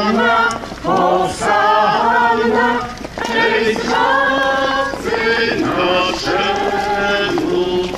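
A crowd of men and women singing a hymn together as they walk, in sustained phrases of a second or two with short breaks between them.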